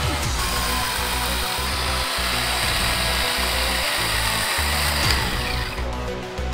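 Worx WG350E 20V brushless cordless chainsaw running as it cuts through a log, a high-pitched electric motor-and-chain sound that cuts off shortly before the end. Background music with a steady beat plays under it.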